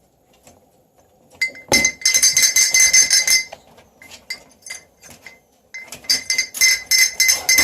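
A metal handbell shaken hard by a Moluccan cockatoo, ringing one bright note in rapid clangs for about two seconds, then a few scattered rings, then rapid ringing again from about six seconds in.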